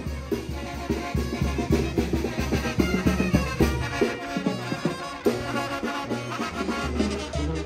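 Brass band music with drums and a steady, regular bass beat.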